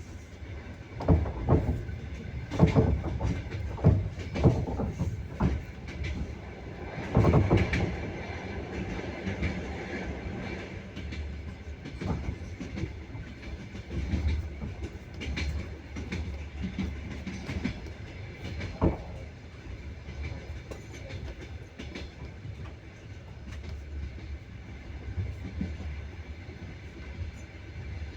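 Train wheels clacking over rail joints over a steady running rumble. A quick series of clacks comes in the first few seconds, a louder burst about seven seconds in, and a single sharp knock a little before twenty seconds.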